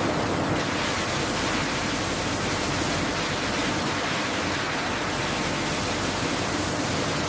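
Steady, even rushing noise with no rhythm or tone, cutting off abruptly near the end.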